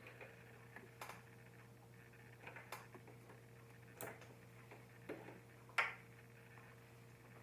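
Scattered small clicks and taps from handling the sewing machine's snap-on presser foot as it is swapped for foot M, the sharpest click a little under six seconds in. A low steady hum runs underneath.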